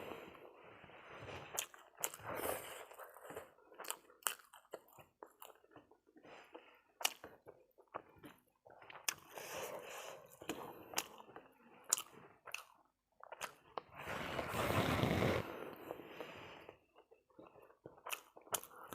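A person chewing food close to the microphone, with wet mouth clicks and smacks, and a louder stretch of chewing about fourteen seconds in.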